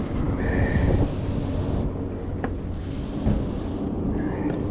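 Wind buffeting the microphone as a steady low rumble, with a single sharp click about halfway through.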